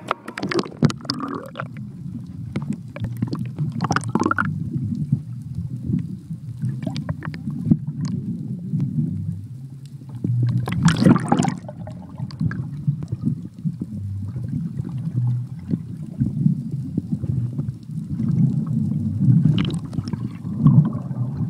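Muffled low rumble of seawater heard through a camera held just below the surface, with gurgling splashes as the camera breaks in at the start and again around four seconds, around eleven seconds (the loudest), and near the end.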